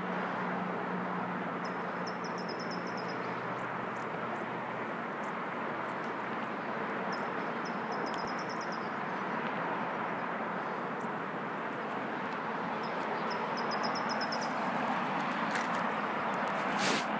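Steady rush of distant traffic, with a small bird singing a short, high, rapid trilled song three times, about five seconds apart. A sharp knock sounds near the end.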